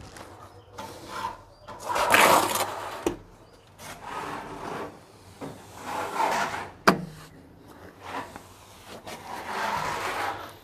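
Steel trowel scraping and smearing cement tile adhesive across a concrete wall in about four long strokes, with a sharp knock of the trowel about seven seconds in.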